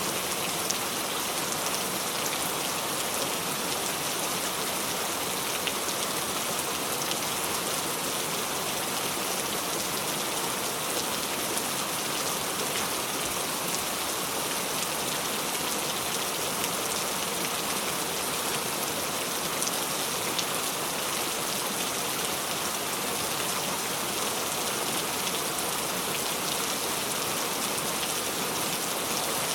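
Steady rain falling on a surface, an even hiss with many fine, scattered drop ticks.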